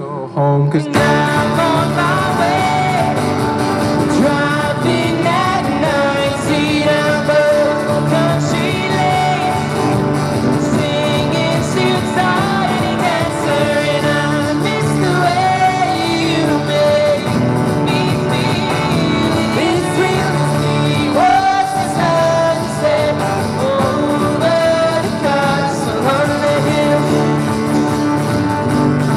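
Two acoustic guitars strummed together with a male voice singing into a microphone, a live busking duet; the full sound comes in about a second in.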